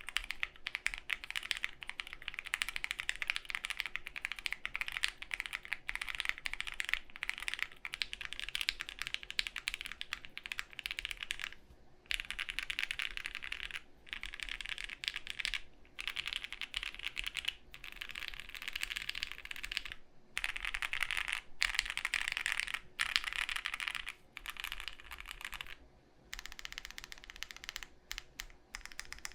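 Fast, continuous typing on a Studio Kestra Nue custom mechanical keyboard, built plateless with foam and lubed linear switches, with a few brief pauses between runs of keystrokes. A faint steady fan hum sits underneath.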